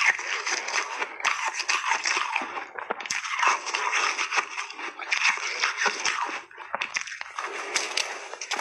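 Soft refrozen shaved ice being bitten and chewed in big bites close to the microphone. It makes a dense, wet crunching that comes in runs of a second or two with short breaks between bites.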